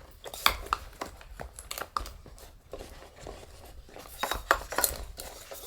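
Small objects being handled at close range: a series of light clicks and knocks with some rustling, irregularly spaced, with a louder cluster about four seconds in.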